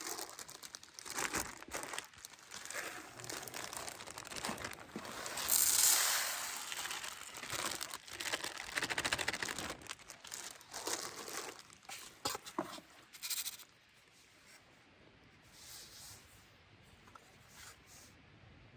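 Irregular rustling, crinkling and tearing sounds with scattered small knocks, loudest a few seconds in, then dying down to faint occasional rustles.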